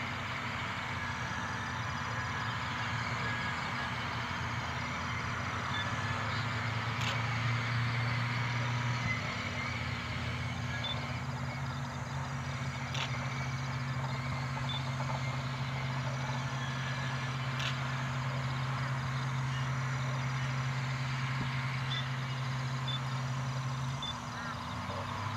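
Diesel locomotive of a sugarcane tramway running as it slowly approaches hauling cane bins, its engine a steady low hum that steps up in pitch about nine seconds in and drops away near the end.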